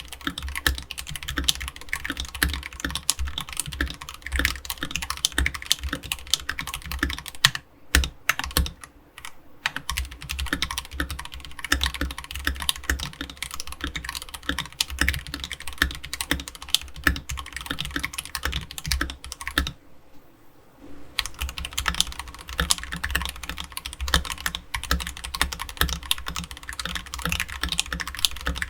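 Fast typing on an AKKO 3068B Plus mechanical keyboard fitted with AKKO Jelly Purple tactile switches: a dense stream of key clacks. The typing thins out briefly about a quarter of the way in, and stops for about a second two-thirds of the way in, where the board goes from a bare desk onto a desk mat.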